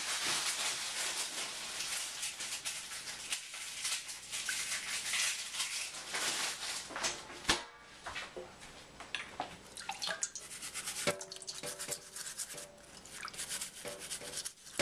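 Toothbrush bristles scrubbing the peel of an orange in a pot of water: fast, scratchy rubbing that thins out about halfway through into scattered strokes, with small drips and splashes of water.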